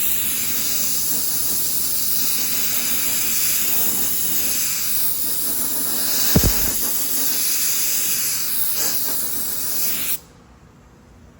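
Steady hiss of blowing air drying freshly sprayed trim-black guide coat on the panel, cutting off suddenly near the end. A single short thump about six seconds in.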